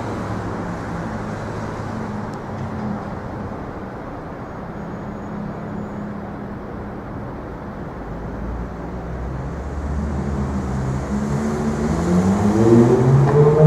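City street traffic noise with engines running; near the end a vehicle's engine rises in pitch and grows louder as it speeds up.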